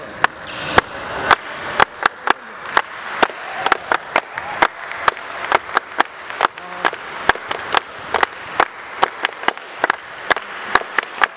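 Hand clapping during a stoppage in a basketball game: sharp, uneven claps about two to three a second, from a few people rather than a full crowd.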